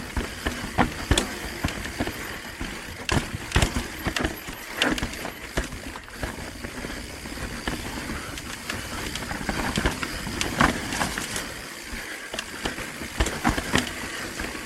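Mountain bike rolling over rough, rocky trail. Tyres, chain and frame clatter, with frequent irregular sharp knocks over a steady rushing noise.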